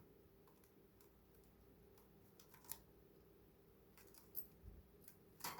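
Near silence: quiet room tone with a few faint, short clicks, the last near the end a little louder.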